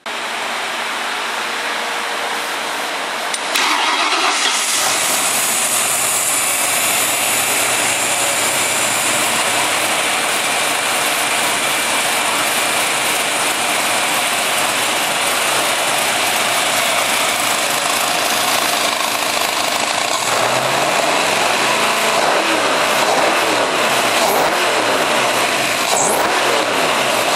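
Ford 351 Windsor V8 with throttle-body fuel injection starting up, getting louder about three and a half seconds in, then idling steadily at about 1000 rpm.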